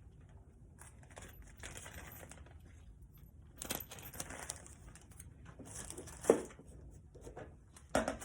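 Small metal air-line fittings clinking and rattling as they are handled and sorted, with a sharper metallic clink about six seconds in.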